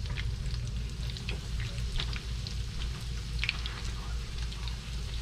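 Food frying in hot oil: a steady sizzle with scattered crackles and pops over a low hum.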